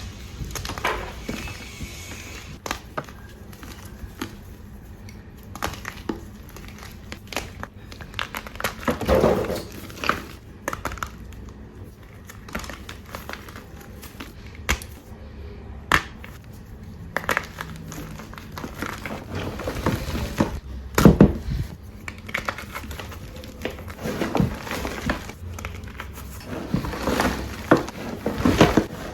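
Blocks of reformed gym chalk crunching and crumbling in irregular crackly bursts and sharp snaps, over a steady low background of construction noise.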